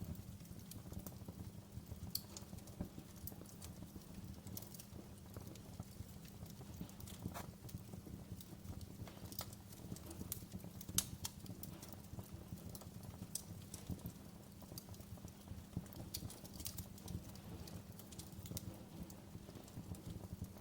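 Wood fire crackling in a fireplace: irregular sharp pops and snaps at uneven intervals over a steady low rumble, with one louder pop about halfway through.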